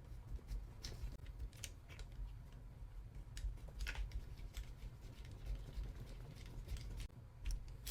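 Faint, irregular light clicks and taps of small parts and tools being handled while assembling a mini RC crawler, over a low steady hum.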